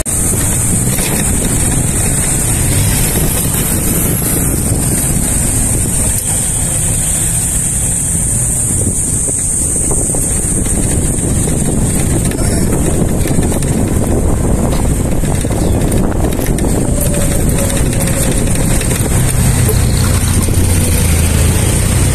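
Ride noise from inside a moving open-sided vehicle: the engine running under a steady rush of wind on the microphone, with the low engine rumble growing louder near the end.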